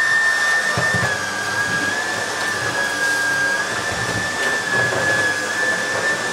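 Miele Revolution 500 S556 canister vacuum cleaner running steadily with a high motor whine, its electric powerhead's brush roll switched on and pushed over carpet. About a second in, the whine drops slightly in pitch and a low rumble joins it as the head works the carpet.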